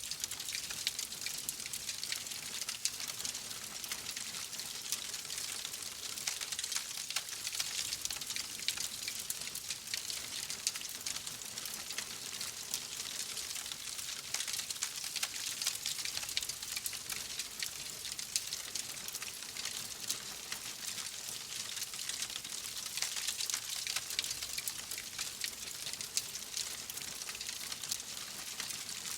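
Fire crackling: a steady, dense stream of small crackles and pops.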